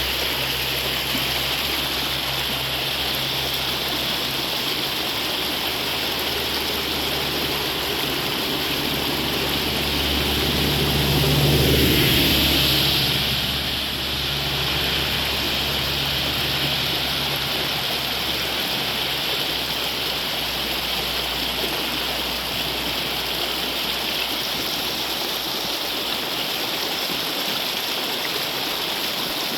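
Steady rushing of heavy rain and running water. Partway through, a louder passing sound swells and fades over the water.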